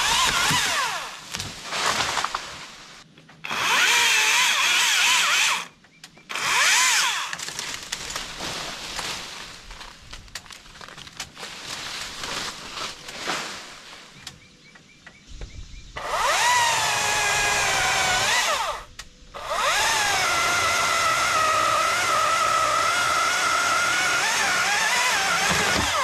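Gas chainsaw cutting through a large red oak limb, run at full throttle in several bursts with short drops to idle between. The engine's pitch dips and rises as the chain works in the wood.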